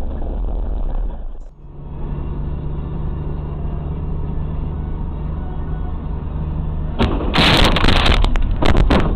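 Dashcam recording from inside a moving car: steady engine and road hum. About seven seconds in comes a sudden loud impact and clattering noise, lasting about two seconds, as something strikes the car.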